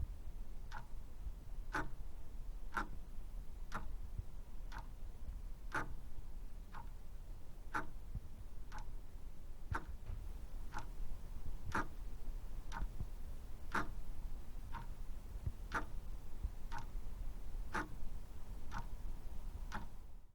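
Old mechanical clock ticking steadily, about one tick a second, over a faint low hum.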